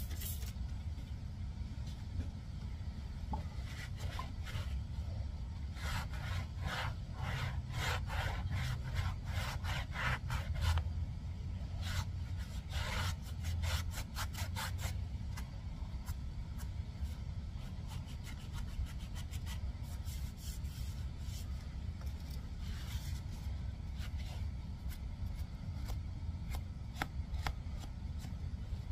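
Quick back-and-forth rubbing strokes in several bursts: the 6.5 diesel's injection pump area being scrubbed clean by hand, over a steady low hum.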